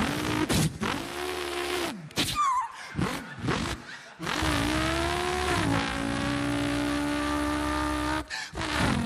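A man imitating a V8 Holden Torana with his voice: short rising and falling engine revs, a high tyre-squeal glide about two seconds in, then a long held engine note for about four seconds, which breaks off and starts again near the end.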